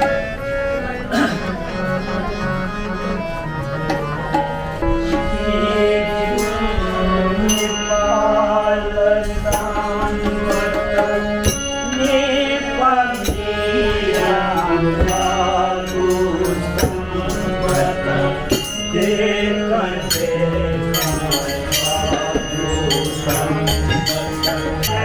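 A Hindu devotional bhajan: singing with tabla and other instruments, played continuously.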